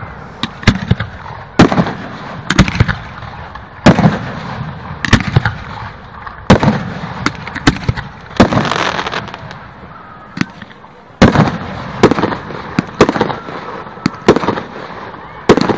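Aerial fireworks bursting in a steady barrage, sharp booms about once a second, some in quick doubles, each followed by a rolling rumble and crackle. Crowd voices can be heard faintly underneath.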